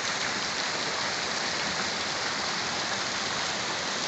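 Steady rain falling, mixed with the rush of muddy runoff water flowing down the street.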